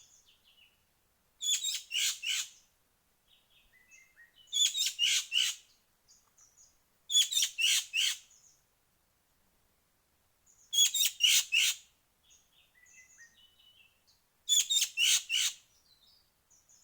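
Loud bird calls, most likely from an ekek keling or a lure call for it. Five times, about every three and a half seconds, comes a quick run of four or five harsh, rasping notes, with fainter chirping between the bursts.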